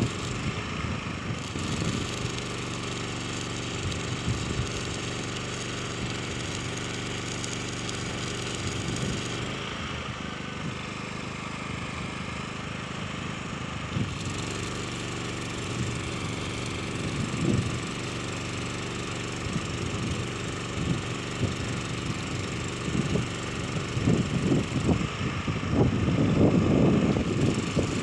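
Small engine running steadily, with irregular crackles and knocks that grow busier near the end.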